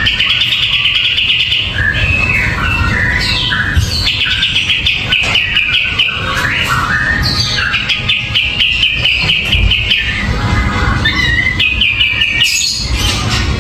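A caged kapas tembak bulbul singing vigorously: several bursts of rapid, rattling trills, each a fast run of repeated notes, broken by short pauses and a few falling whistles.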